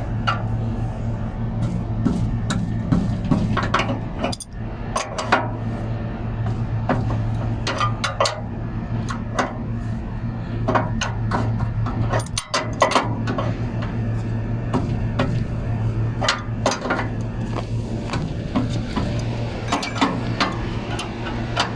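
Adjustable wrench clicking and clinking on the steel tensioning bolt and check nut of a belt-drive blower motor's sliding base, in irregular metal taps as the check nut is tightened after tensioning the drive belt. A steady low hum runs underneath throughout.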